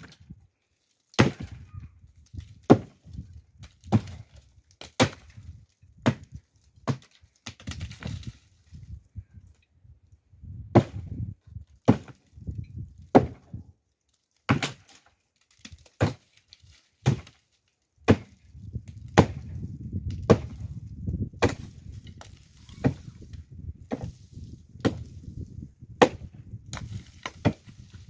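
Firewood being chopped: a steady series of sharp blade strikes into wood, roughly one a second.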